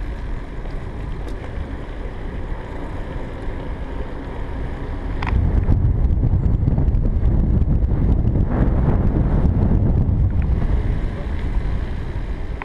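Wind rushing over the microphone together with tyre and road rumble from a recumbent cycle rolling on asphalt. The rumble swells louder about five seconds in and eases off near eleven seconds.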